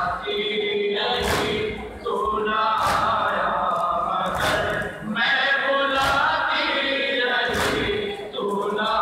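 A large crowd of men chanting a noha in unison, with a sharp beat about every second and a half from matam, the hand strikes on the chest keeping time with the lament.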